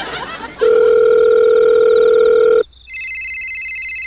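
Telephone sound effects: a steady, dial-tone-like tone for about two seconds, then a fast-trilling electronic phone ring.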